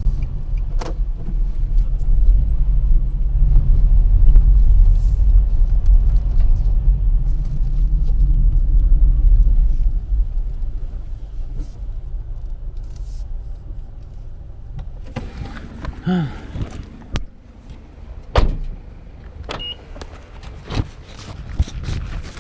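Car cabin road noise, a steady low rumble that drops off about ten seconds in as the car slows. Then a few clicks and several sharp knocks.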